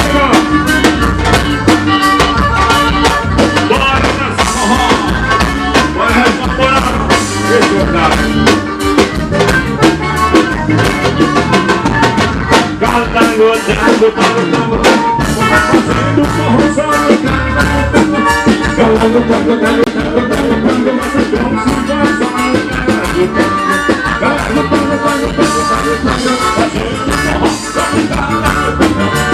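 Forró band music played loud, driven by a steady drum-kit beat.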